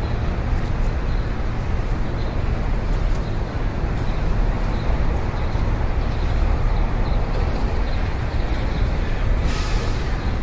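Steady low rumbling vehicle noise, with a brief rushing swell near the end.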